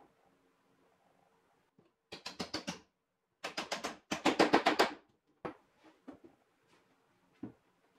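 A hammer tapping a wooden dowel pin into a plywood pivot joint: three quick runs of rapid taps about two seconds in, the last run the loudest. A few single wooden knocks follow as the plywood parts are moved.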